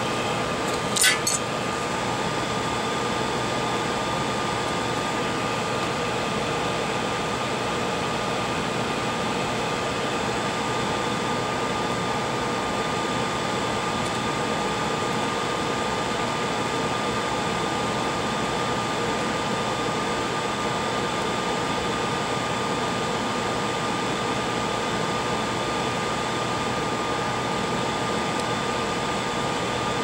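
Steady rushing air from a fan, with a faint constant whine over it; a single short metallic clink about a second in.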